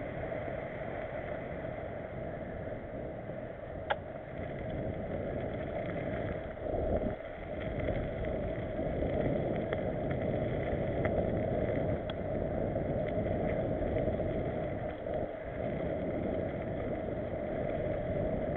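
Mountain bike riding fast over a dirt forest track, heard from a camera on the bike: steady rolling rumble of tyres and wind noise, with a few sharp rattles or clicks from the bike, one about four seconds in and another about twelve seconds in.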